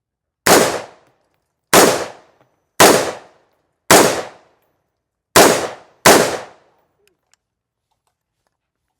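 Six gunshots from a firearm fired in an uneven string over about six seconds, the last two close together, each crack trailing off in a short echo. They are loud enough to leave the shooters' ears ringing.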